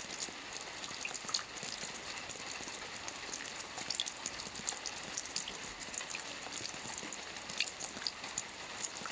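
Steady rain falling, with a dense patter of individual drops ticking over the hiss.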